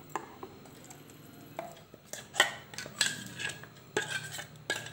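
A steel spoon scrapes and knocks against a mixer jar and a metal bowl while thick rice-and-coconut batter is emptied out. After a quiet first second or so comes an irregular run of clinks and scrapes.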